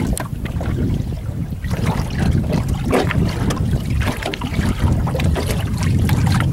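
Wind buffeting the microphone, over water lapping and small splashes at the boat's side where a northern pike is held in the water to revive it before release.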